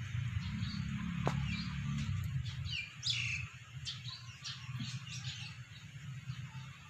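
Small birds chirping: a run of short, high chirps with quick falling notes, coming thickest from about three seconds in. Under them a low rumble stops a little before that.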